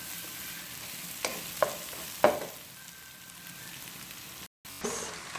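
Chorizo frying in olive oil with sautéed onion and garlic in a pan: a steady sizzle, with a few sharp clicks in the first half. The sound cuts out for an instant near the end.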